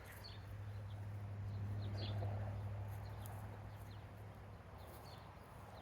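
Small birds chirping faintly, over a low steady hum that swells around two seconds in and then fades.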